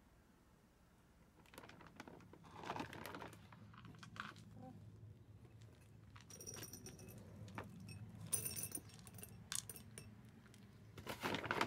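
Dry cat food rattling in a small plastic cup and clinking into a ceramic bowl, in a series of short clattering bursts that start a second or two in.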